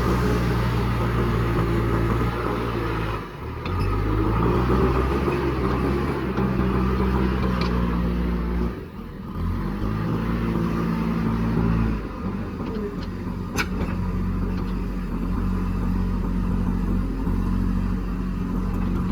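JCB backhoe loader's diesel engine running under load, its revs rising and falling as it works, with two brief dips about 3 and 9 seconds in. A single sharp click about two-thirds of the way through.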